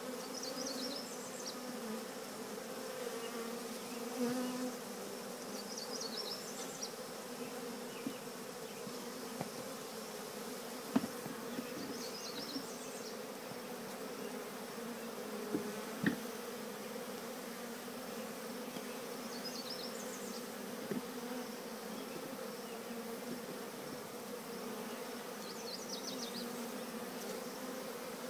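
A honey bee swarm humming steadily, a dense, even buzz from thousands of bees crawling into their new hive.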